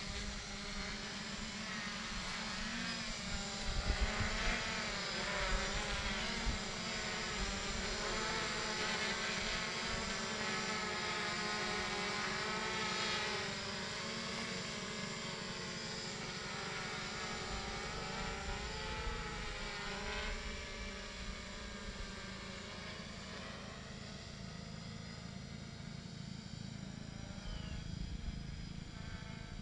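Hexacopter's six electric motors and propellers buzzing in flight, the pitch wavering up and down as the throttle changes. Loudest in the first half, growing fainter as it flies farther off.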